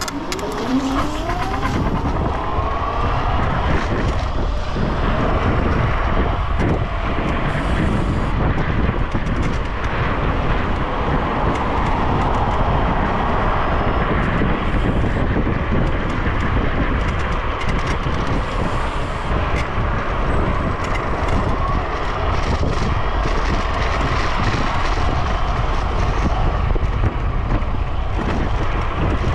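Yugen RX11 electric scooter riding at speed: a loud, steady rush of wind and road noise, with the motor's whine rising in pitch over the first few seconds as the scooter accelerates.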